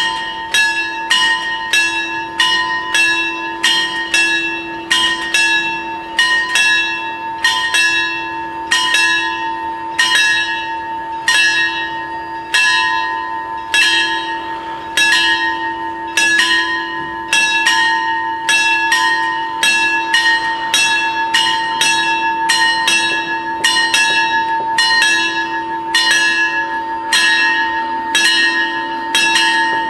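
The two electric warning bells of an Italian FS 64 railway level crossing ringing with quick, even strokes, signalling that a train is coming and the barriers are about to close.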